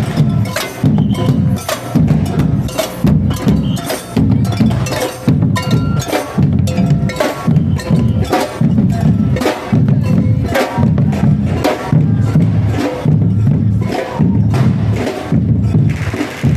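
Procession drum band playing a steady march rhythm: deep drum beats about twice a second with sharp, bright strikes in between.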